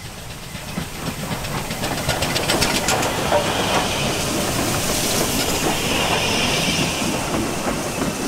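Steam locomotive passing close by: its exhaust beats and steam hiss grow louder as it approaches, then the coaches roll past with wheels clicking over the rail joints.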